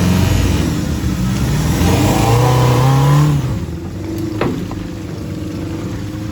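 4x4 off-road vehicle engine revving hard under load, its pitch climbing for about a second before it drops back about three and a half seconds in. A single sharp click or knock follows a second later.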